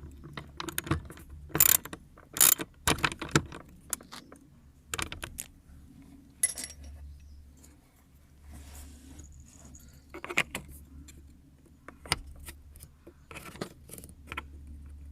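Irregular hard clicks and light rattles of small parts being handled: the pieces of a car's air-conditioner control dial being worked on and refitted. The loudest knocks come in a cluster a couple of seconds in.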